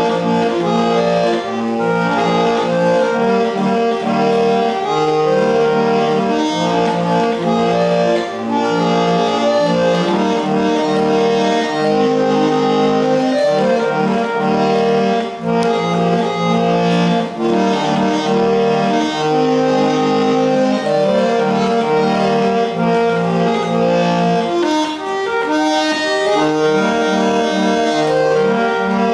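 Hand-cranked barrel organ of an antique Theroude monkey automaton playing a continuous tune: held organ notes over a bass line that changes every second or so.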